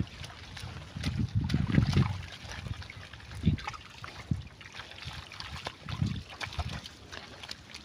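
Pigs wallowing in muddy water, splashing and sloshing in irregular bursts, loudest a second or two in.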